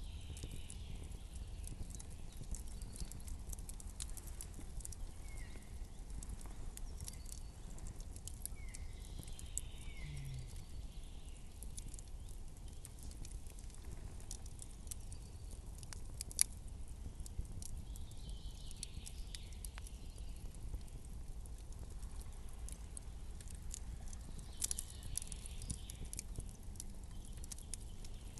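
Campfire crackling, with scattered sharp pops and snaps over a low steady rumble; the sharpest pop comes about 16 seconds in.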